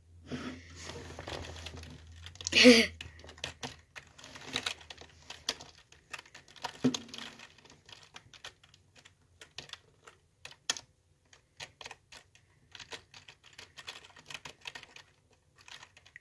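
Irregular tapping and clicking of a computer keyboard and mouse in use, with one louder short burst about three seconds in.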